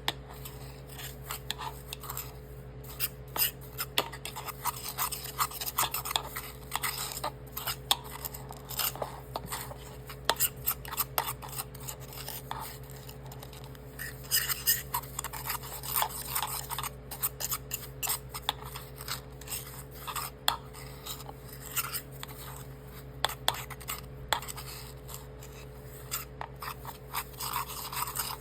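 A utensil stirring and scraping around a bowl of dry seasonings, with many small irregular clinks and scrapes against the bowl as the spices are mixed together.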